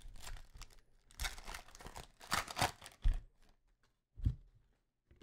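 A trading card pack wrapper being torn open and crinkled, in a handful of short rips and crackles, the loudest about one to three seconds in and another near four seconds.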